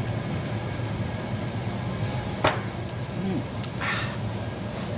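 A man downing a shot of soju: a sharp knock about halfway through, then a short breathy gasp after the shot. A steady low hum runs underneath.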